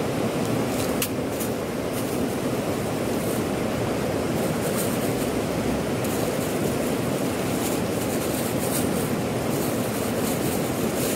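Steady rushing of river rapids close by, with scattered light crinkles and rustles as a plastic bag is handled.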